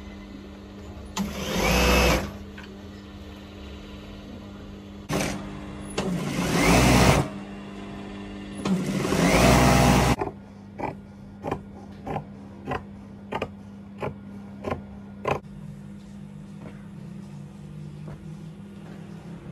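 Industrial straight-stitch sewing machine running in three short bursts, its motor whining up in pitch and back down each time, over a steady low hum. Then comes a run of about nine sharp clicks, roughly two a second.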